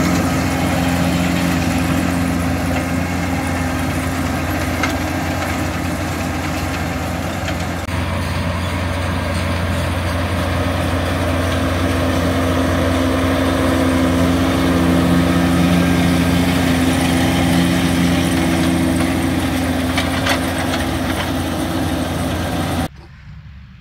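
New Holland tractor engine and Claas Rollant Uniwrap round baler-wrapper running together while baling hay, a steady mechanical drone. It cuts off to a much quieter background about a second before the end.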